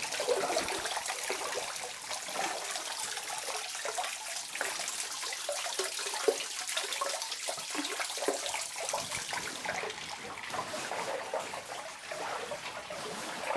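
Water splashing and trickling in a flooded mine tunnel, with many small irregular splashes and one louder sharp sound about halfway through.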